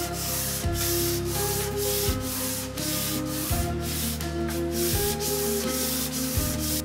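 Hand-sanding a wooden cutting board: rapid back-and-forth strokes of abrasive over the wood, a rhythmic scratchy rasp of about three strokes a second.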